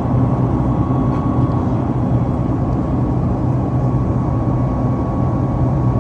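Steady, loud low rumble of a running vehicle, unchanging throughout, with a faint constant high whine above it.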